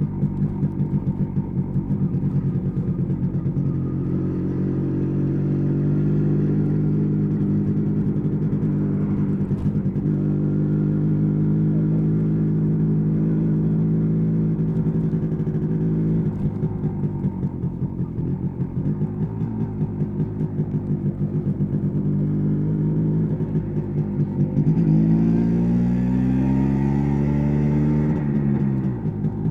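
1986 MZ ETZ 250's single-cylinder two-stroke engine running with a pulsing, uneven beat, holding a steady pitch for a long stretch. Near the end it is revved, the pitch climbing over a few seconds and then dropping back.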